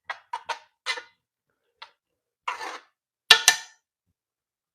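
A cooking utensil clinking and tapping against a pan: a quick run of light taps in the first second, a single tap, a short scrape, then two sharp knocks about three seconds in.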